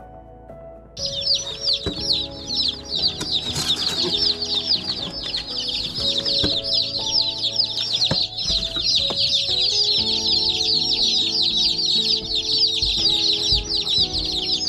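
A flock of newly shipped meat chicks peeping all together: a dense, constant chorus of high, falling cheeps that starts abruptly about a second in. The keeper reads such chirping as a sign the chicks are probably cold and looking for heat. Soft background music runs underneath.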